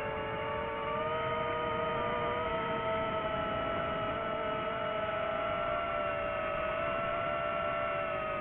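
FPV quadcopter's brushless motors whining: several steady overlapping tones that rise a little in pitch and get slightly louder about a second in, then drift back down near the end.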